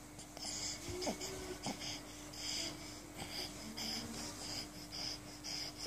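Baby breathing in short, airy, wheezy puffs, about two a second, as it smiles and gets ready to laugh. A faint steady hum runs underneath.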